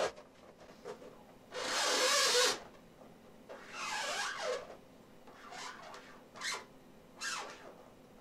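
Marker pen writing on an inflated latex balloon: a series of separate rubbing, squeaky strokes, each a second or less, with short pauses between.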